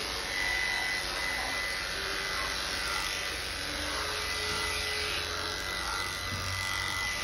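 Cordless electric pet clipper running steadily as it shaves through a cat's fur: an even buzz with a thin high whine over it.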